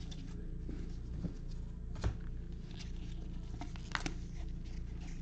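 Baseball trading cards being flicked and slid against each other in gloved hands: scattered soft clicks and ticks, two sharper ones about two and four seconds in, over a steady low hum.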